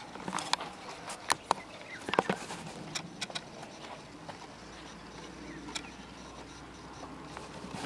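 Footsteps and handling knocks of someone walking on a dry dirt path, a cluster of sharp irregular clicks and knocks in the first few seconds that then fade into a quiet outdoor hush.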